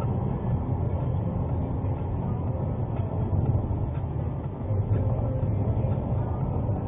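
Steady engine and tyre noise from a car driving along a road, heard from inside the car through its dashcam: an even, low rumble.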